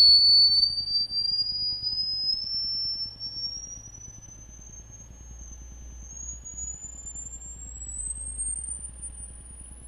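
Pure sine-wave tone from a loudspeaker driven by a function generator, sweeping up in small steps through very high pitches and growing fainter as it climbs. This is a test for the upper limit of human hearing.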